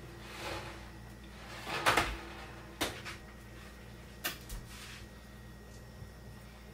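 A few knocks and clunks of kitchen handling at the stove and oven, the loudest about two seconds in, with smaller ones a second and two seconds later.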